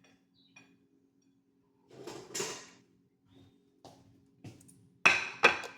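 Kitchen handling sounds: a brief scraping rustle about two seconds in, then two sharp knocks near the end, like a drawer, door or dish being set down, over a faint steady hum.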